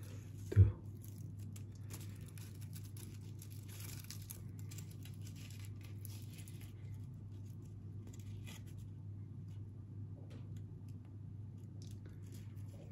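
Grilled banana-leaf wrapper crinkling and tearing as it is peeled open by hand from an otak-otak fish cake, over a steady low hum. A brief low thump, the loudest sound, comes about half a second in.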